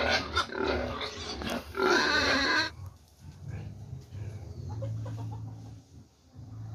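Hybrid fattening pigs grunting in a concrete pen. It is loud and busy at first, then drops suddenly after nearly three seconds to quieter, low drawn-out grunts.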